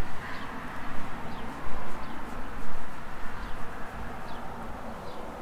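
A small bird chirping repeatedly in short, high, downward-sliding notes, about one a second, over a steady background hiss and low rumble.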